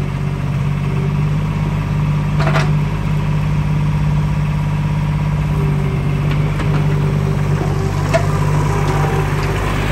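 Komatsu PC05-6 mini excavator's three-cylinder diesel running steadily while the boom and arm are worked, with a short knock about two and a half seconds in and a fainter one about eight seconds in.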